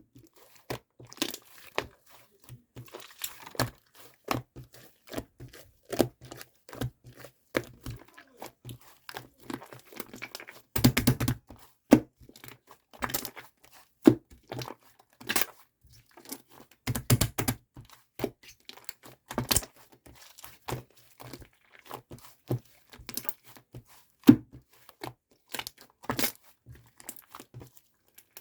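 Hands squishing and pressing slime covered in shaving foam, giving a dense run of irregular sticky pops and crackles, with longer crackling stretches about 11 and 17 seconds in.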